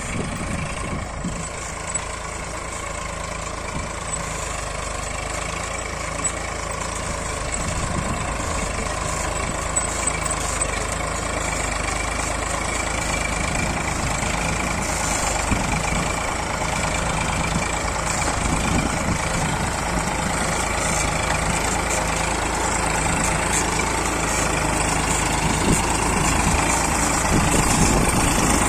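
Eicher 485 tractor's three-cylinder diesel engine running steadily, growing gradually louder.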